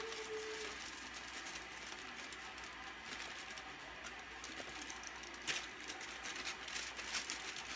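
Aluminium foil crinkling and rustling as it is peeled back off a baking pan, with scattered sharp crackles.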